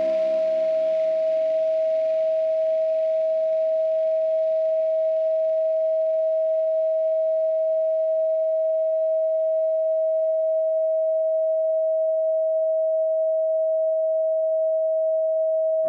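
A steady pure sine tone at about 639 Hz, held unchanging, while the last of the ambient music dies away beneath it over the first several seconds.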